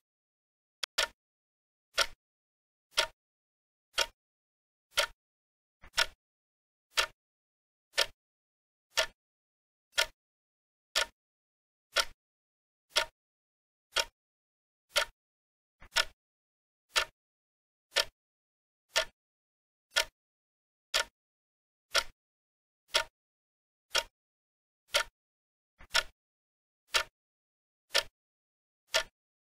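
Countdown timer sound effect: sharp, clock-like ticks, one a second, with silence between them. It counts down the time allowed to answer the exercise question.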